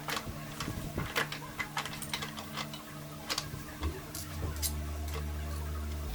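Irregular light clicks and taps of hand tools and metal parts being handled, over a steady low hum that grows louder about four seconds in.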